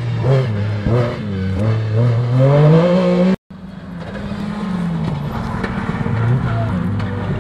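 Rally car engines running hard through a corner: the first car's revs dip then climb, the sound cuts off suddenly about three and a half seconds in, and a second car's engine comes in with its pitch slowly rising.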